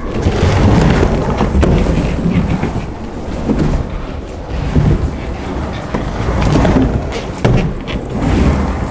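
Surfskate wheels rolling over concrete as the rider drops in and carves through a wave-shaped bowl: a continuous rumble that swells and dips with each turn.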